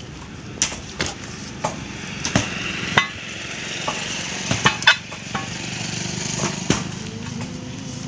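Rubber inner tube being hauled by hand out of a truck tyre: scattered sharp slaps and knocks with a scraping rustle of rubber on rubber. A steady low hum runs underneath.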